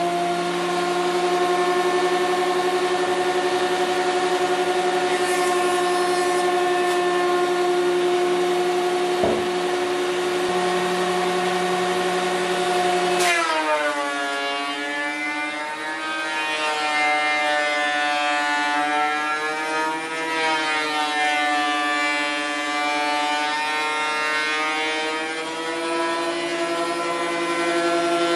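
Benchtop thickness planer running with a steady motor whine. About 13 seconds in, a board is fed in: the pitch drops and wavers as the cutterhead takes the cut, and it climbs back part way near the end.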